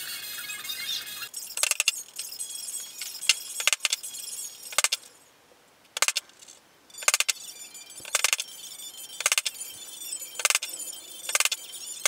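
Brass mallet striking a steel leatherworking punch held on leather over a wooden block: sharp metallic clinks with a short ring, about one a second, with a brief pause near the middle.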